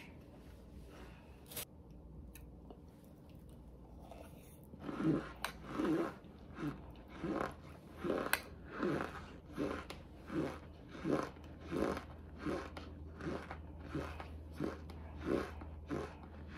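Cornstarch being chewed with a steady crunching, about four chews every three seconds. The chewing starts about five seconds in.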